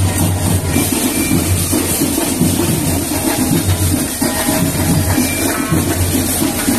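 Marching band playing in the street: a loud, steady beat of bass drums and percussion with horns.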